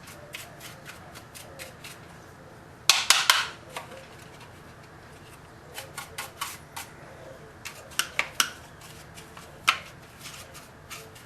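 Hard plastic robot-vacuum dust bin being tapped and handled to knock the dirt out: scattered sharp clicks and knocks, with a quick cluster of the loudest knocks about three seconds in.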